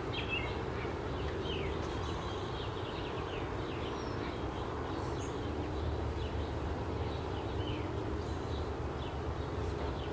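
Outdoor ambience: many short bird chirps scattered over a steady low hum.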